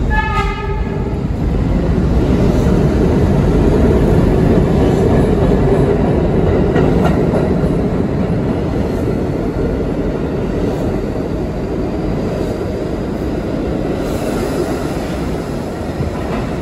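Eight-car R32 subway train passing through an underground station without stopping, its wheels rumbling and clattering on the rails. The sound is loudest a few seconds in, then fades as the train pulls away into the tunnel. A brief high ringing tone sounds in the first second.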